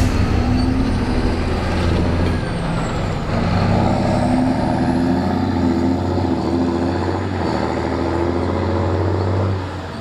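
John Deere 7730 tractor's six-cylinder diesel engine running steadily as the tractor drives along the road, with a slight pitch change a few seconds in and a brief drop in level near the end.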